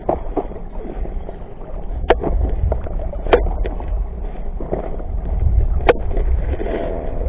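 Small inflatable boat on the water: a steady low rumble with a few sharp knocks against the boat, the loudest about two, three and a half and six seconds in.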